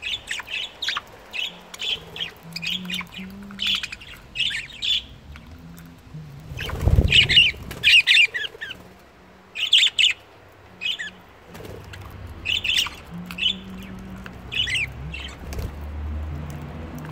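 Budgerigars chattering: a quick, irregular run of short scratchy chirps and squawks, with a dull low thump about seven seconds in.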